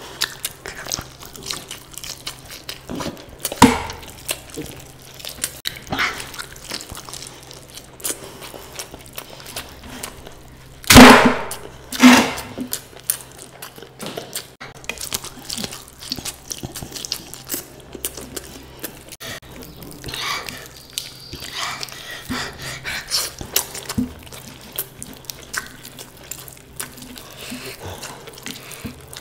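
A person eating close to the microphone: chewing and biting, with wet mouth clicks and smacks throughout. Two louder sharp sounds come about a second apart near the middle.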